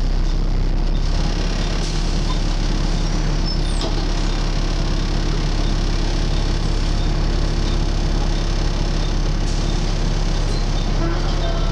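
Volvo B7TL double-decker bus's seven-litre straight-six diesel running steadily, with the loud drone and whoosh of its 'hoover' noise and no change in engine pitch.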